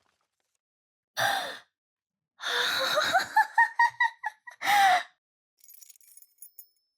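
A woman's wordless vocal sounds: a short breathy sigh, then a run of short, rising high-pitched notes, then another sigh. Faint rustling near the end.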